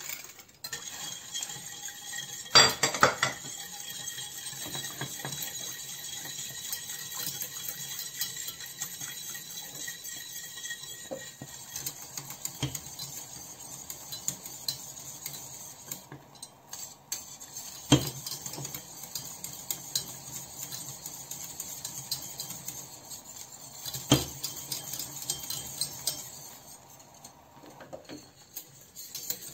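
Metal wire whisk stirring a thin sauce in a stainless steel saucepan, scraping and clinking continuously against the pot, with a few sharper knocks against the pan, about 3, 18 and 24 seconds in.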